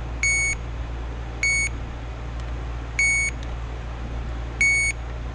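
Power Probe circuit tester beeping four times, a short high beep each time its tip touches a fuse terminal, signalling that 12 volts is present: the fuses are good.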